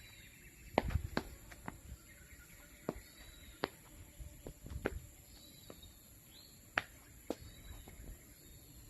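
A series of light, irregularly spaced clicks and taps over a low background rumble, with faint bird chirps in the background.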